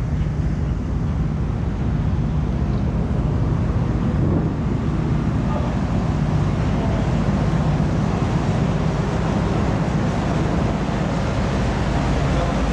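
Steady low drone of the car ferry Katsuragi's engines under way, mixed with wind rushing across the microphone.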